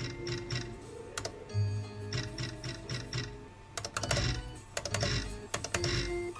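Novoline video slot machine playing: short electronic tones and runs of rapid clicking ticks as the reels spin and stop, with low thuds, repeating spin after spin.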